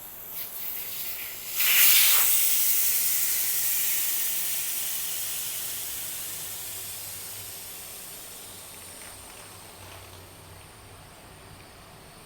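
Air hissing out of an e-bike tire as it is let down, starting suddenly about two seconds in and fading slowly as the pressure drops.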